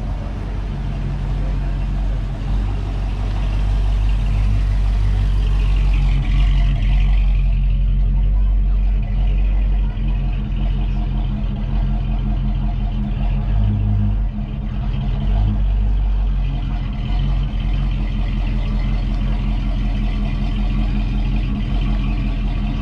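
Car engines idling and cars moving slowly through the lot, a steady low hum, with people talking in the background.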